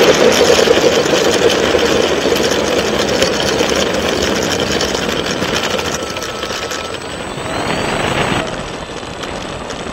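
Rolling noise of a radio-controlled T-28 model plane running along an asphalt runway with its motor throttled back, heard from a camera mounted on the plane. It is an even noise with no engine note, fading gradually as the plane slows, with a brief swell near the end.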